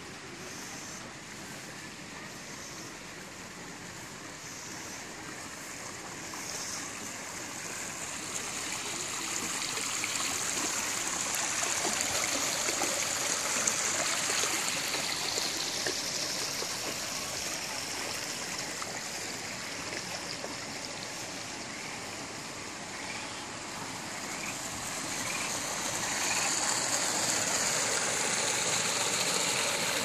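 Water running down an artificial garden stream and pouring from a man-made rock waterfall into a pond, a steady rush that grows louder about ten seconds in and again near the end.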